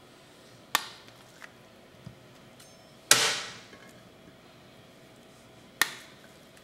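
Sharp knocks of a kitchen knife while avocado halves are pitted: three loud strikes about two and a half seconds apart, each with a short ringing tail, the middle one the loudest, with a couple of faint taps between.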